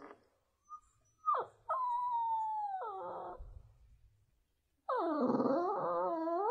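A dog howling: a short yelp, then a long drawn-out call that slowly falls in pitch, and after a pause of about two seconds a second, wavering howl that rises at the end.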